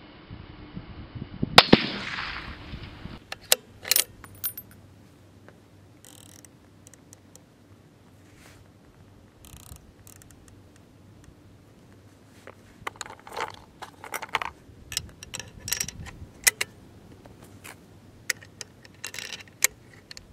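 A single rifle shot with a rolling echo about a second and a half in. Then a series of sharp metallic clicks and clacks as the bolt-action rifle is handled and the Vortex Viper PST scope's turret is dialed, thickest near the end.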